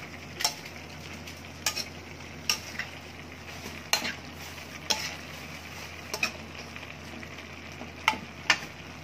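A spatula stirring stir-fried vegetables in a metal wok, knocking and scraping against the pan about once a second over a steady frying sizzle.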